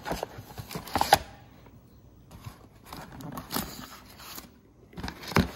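Paper manuals and documents being shuffled and lifted inside a cardboard box: irregular rustling with a few sharper scrapes and knocks, loudest about a second in and near the end.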